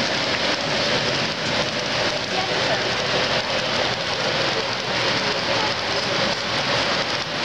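Model freight trains rolling along the layout's track, a steady rushing clatter of many small wheels on rail.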